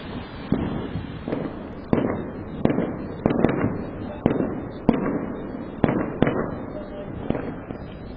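Fireworks going off in a rapid, irregular series of about a dozen bangs, each followed by a short rumbling tail, heard through a security camera's small microphone.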